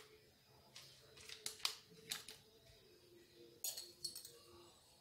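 Faint clicks and scrapes of a spoon against a plastic mixing bowl while baking ingredients are worked into dough, coming in small clusters a second or two apart.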